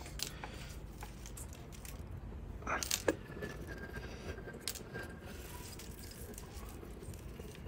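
Light metallic clicks and small rattles as bonsai training wire is handled and cut, with one sharper snip of the wire cutters about three seconds in.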